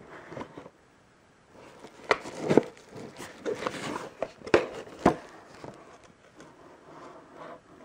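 Cardboard figure box being handled and turned over: rubbing and scraping of the box, broken by several sharp knocks as it taps against a wooden tabletop, the loudest two to five seconds in.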